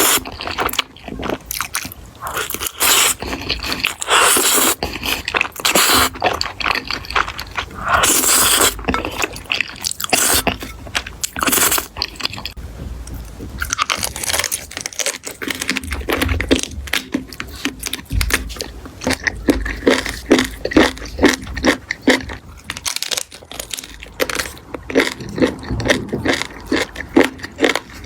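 Close-up eating sounds of someone biting and chewing crunchy food, with many sharp crunches. The crunching eases off for a few seconds about halfway through, then comes back as quick, regular chewing crunches.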